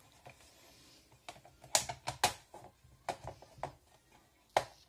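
Plastic paper cassette of a Victure 4x6 photo printer being slid and pushed into the printer's front slot: a run of separate sharp plastic clicks and knocks starting about a second in.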